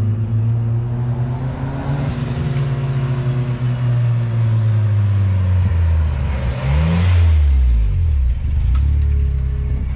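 Mazdaspeed6's turbocharged 2.3-litre four-cylinder engine running steadily at low revs, then rising and falling in pitch about seven seconds in.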